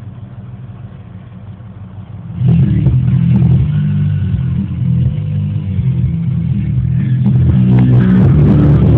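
A 1980 Ford F-100's 302 V8 idling, heard from inside the cab. About two and a half seconds in, the truck's stereo comes on loud with bass-heavy music through a Jensen subwoofer.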